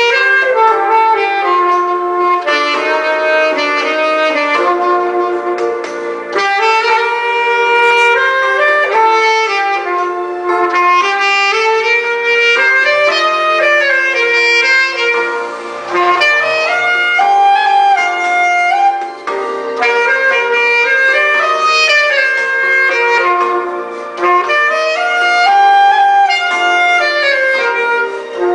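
Yamaha YAS-62 alto saxophone playing a slow, smooth-jazz melody of held and gliding notes over sustained accompaniment chords.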